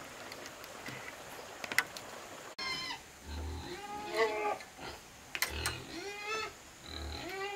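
An animal calling several times from about three seconds in, each call rising and then falling in pitch, with a few sharp clicks in between.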